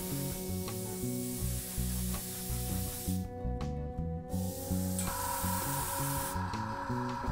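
Gravity-feed airbrush spraying tinted clear lacquer onto clear plastic model parts: a hiss that breaks off for about a second a little after halfway, comes back briefly, then stops near the end. Background music plays throughout.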